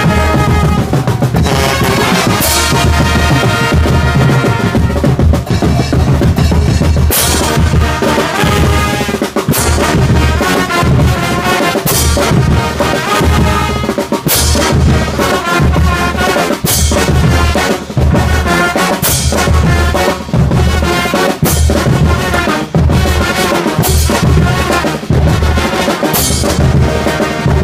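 Street brass band playing live: horns and trumpets over a loud drum line with bass drum, and a sharp crash about every two and a half seconds.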